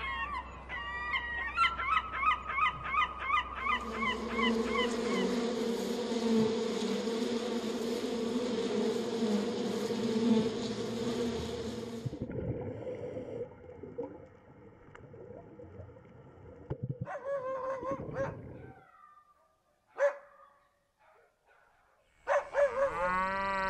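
A flock of gulls and other waterbirds calling: quick repeated cries for the first few seconds, then honking calls over a steady rushing noise until about halfway through. Quieter scattered animal calls follow, with a short call and a longer wavering call near the end.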